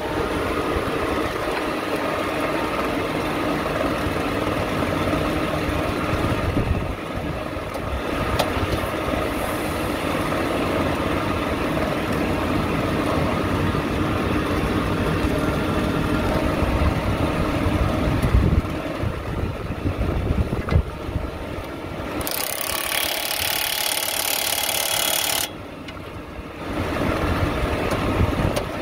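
Belt conveyor machinery running steadily, with an engine-like note, while the belt turns over the freshly re-bearinged roller. About 22 seconds in, a hiss comes in for about three seconds and cuts off suddenly, and the overall level drops for a moment just after.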